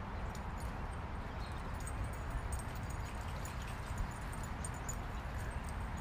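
Outdoor dog-park ambience: a steady low rumble under a faint even hiss, with scattered tiny high clicks and no distinct barking.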